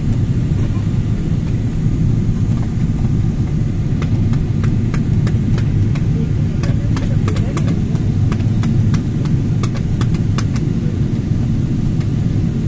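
Jet airliner cabin noise in flight: a steady low roar from the engines and the airflow past the fuselage. Scattered light clicks run through it.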